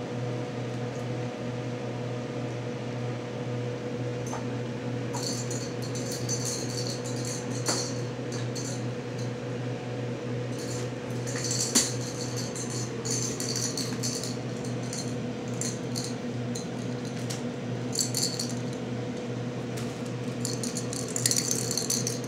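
Kittens batting small cat toys about: short, repeated bursts of light jingling and rattling, with a sharp knock near the middle, over a steady low hum.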